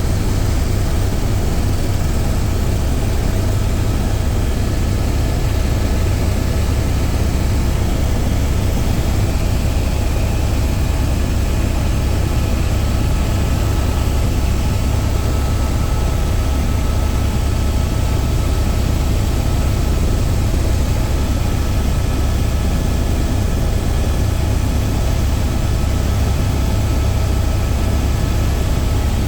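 Helicopter engine and rotor running steadily: a loud, unbroken low drone.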